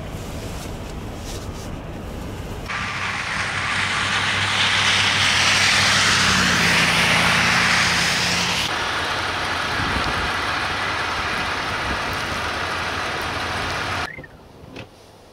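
Road traffic on slushy winter roads: first the low, steady hum of idling truck engines in stopped traffic, then a loud hiss of tyres on wet, slushy pavement for several seconds, then a quieter traffic rumble that cuts off sharply near the end.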